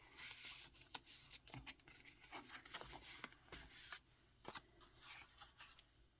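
Faint rustling of paper pages and cards in a handmade junk journal folio being handled and flipped, with a few soft clicks.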